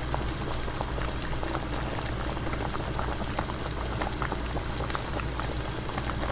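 Pork kimchi stew bubbling at a boil in a pot: a steady crackle of many small pops.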